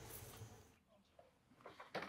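Near silence: faint background hiss, with a few soft clicks near the end.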